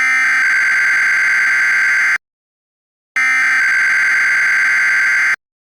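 Emergency Alert System SAME header: bursts of shrill digital warbling data tones, each about two seconds long, with about a second of silence between them. Two bursts are heard here. They carry the encoded header of a Required Monthly Test.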